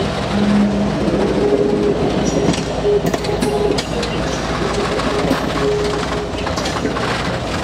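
Norfolk & Western 611 steam locomotive and its tender rolling slowly along the museum track under tow, a steady rumble of wheels on rail with clicks over the rail joints and several short squealing tones from wheels and running gear.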